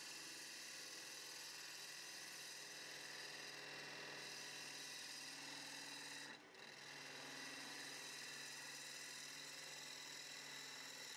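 A turning tool cutting the outside of a she-oak bowl blank spinning on a Nova DVR XP wood lathe: a steady hiss of shavings over the lathe's steady whine, with a brief break a little past six seconds in.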